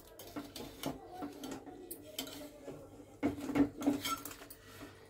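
Metal kitchen utensil knocking and scraping against a cooking pot while boiled spinach and tomatoes are strained and lifted out: scattered light clinks, with a louder cluster of clatter about three seconds in.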